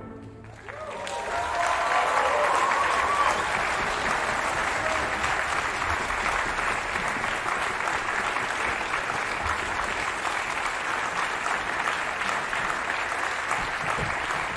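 Large audience applauding: the clapping breaks out about half a second in and settles into steady applause, with a few voices calling out over it in the first seconds.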